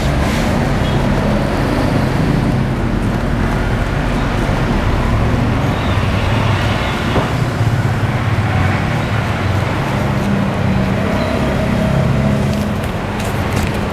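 Steady road traffic, with vehicle engines running and passing in a continuous rumble.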